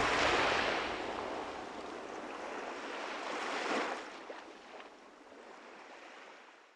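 Sea waves washing: an even rushing noise that swells briefly about four seconds in and gradually fades out.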